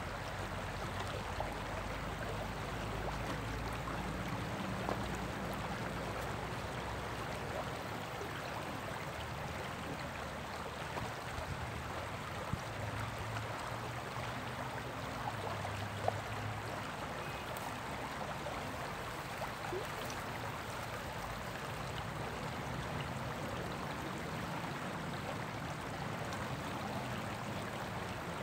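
Shallow stream rippling steadily over rocks in a riffle.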